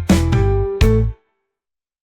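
Reggae music with short chord stabs over bass, cutting off abruptly a little over a second in and leaving dead silence.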